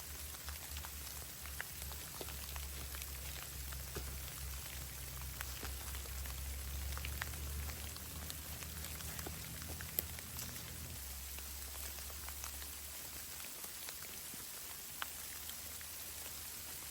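Steady patter of falling precipitation with scattered light ticks, over a low rumble that dies away between about eleven and thirteen seconds in.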